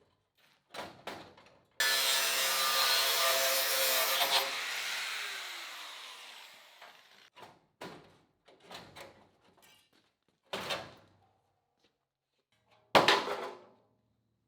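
A power tool works the Land Rover Discovery's sheet-metal body for about two and a half seconds, then winds down with a falling whine. Scattered knocks and scrapes of metalwork follow, with one loud clank near the end.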